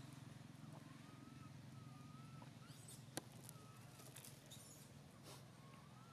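Near silence: faint outdoor ambience with a steady low hum, a few faint thin wavering whistle-like tones, and light rustling of dry leaves, with one sharp click about three seconds in.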